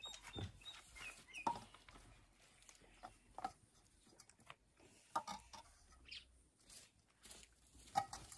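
Faint, scattered clinks and taps of steel bowls and plates being handled during a meal, a knock every second or two, with a few short chirps in the first second or so.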